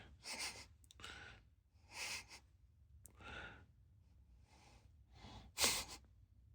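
A cat making a series of short, breathy huffs, about one a second, the loudest near the end.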